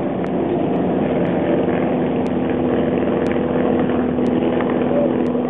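Douglas DC-3A airliner's twin radial engines droning steadily as it climbs away after takeoff.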